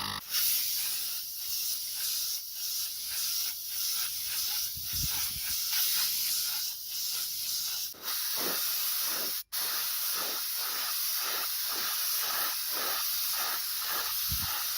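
Rhythmic, hissing abrasive rubbing strokes, slow at first and faster from about eight seconds in, with a brief break about nine seconds in.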